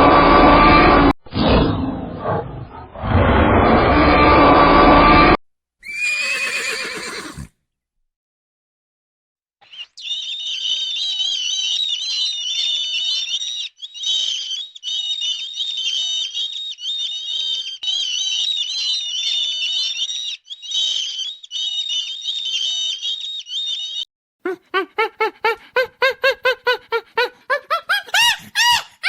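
A run of different animal calls: a loud roar-like call lasting about five seconds, then a long stretch of high-pitched chirping, then rapid repeated honking calls near the end.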